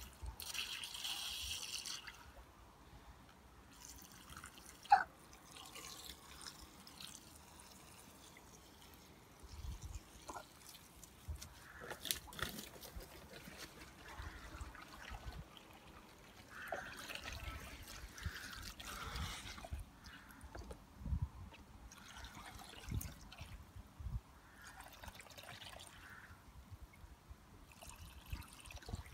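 Water from a garden hose, trickling and dripping, with a short hiss of spray at the start and a sharp click about five seconds in.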